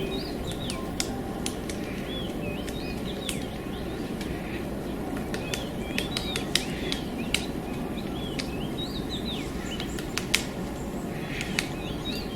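Birds chirping in short repeated arching calls, mixed with scattered sharp clicks, over a steady low background noise.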